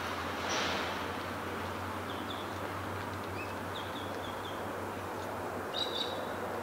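Small birds chirping in short runs of high notes, the loudest pair near the end, over a steady rushing background hiss.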